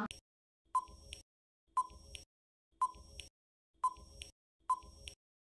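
Countdown timer sound effect ticking about once a second, five ticks, each with a fainter second click just after it.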